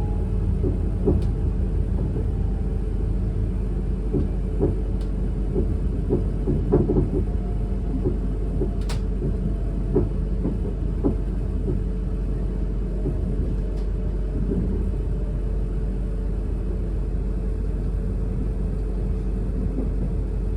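Inside a Class 444 Siemens Desiro electric multiple unit on the move: a steady running rumble with a run of sharp knocks and clatter from the track in the first half, settling to a smoother rumble later. A faint whine slowly falls in pitch.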